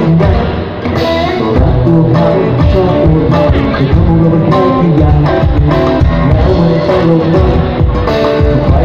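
Live band playing through a PA: acoustic and electric guitars and bass over a drum kit.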